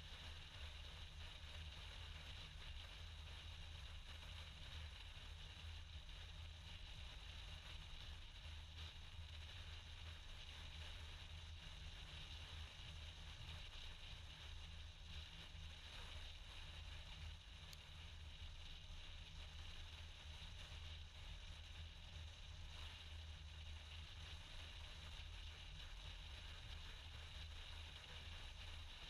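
Near silence: room tone with a steady low hum and faint hiss, unchanging throughout.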